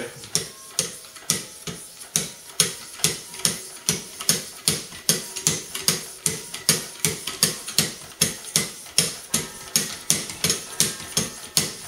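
Wicked Edge diamond sharpening paddles stroking along a knife blade clamped in the guided sharpener: a steady rhythm of short scraping strokes, about two to three a second. This is the grit stage below 1000, refining the edge and working out the scratches of the coarser paddles.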